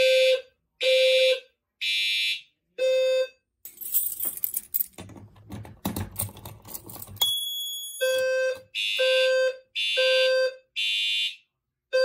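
Fire alarm horns sounding in short pulses about once a second during a system test. The pulses are interrupted for a few seconds by rustling handling noise close to the microphone. Then a single high steady beep sounds before the horn pulses resume.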